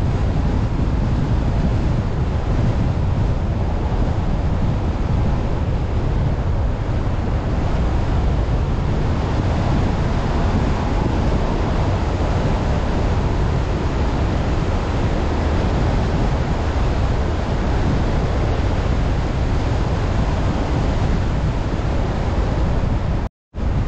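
Steady, deep rushing wind and road noise from a car driving, with no distinct events. The sound drops out completely for a split second near the end.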